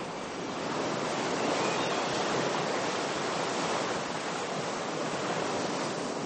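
Sea water rushing steadily along the hull of a sailing ship under way, an even wash of noise with no breaks.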